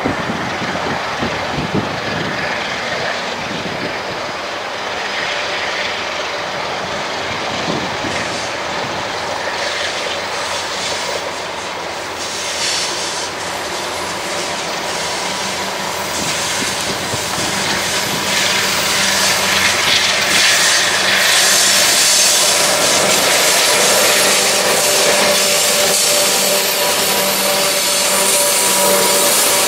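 Diesel locomotive GL107 hauling a container train, approaching and passing close by: engine running and steel wheels rolling on the rails. It grows louder about two-thirds of the way in as the train comes alongside, with a steady squealing tone over the rumble.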